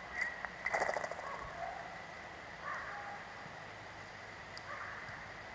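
Steller's jay taking a peanut and leaving a log: a brief rapid flurry of sound about a second in, then a couple of fainter short sounds.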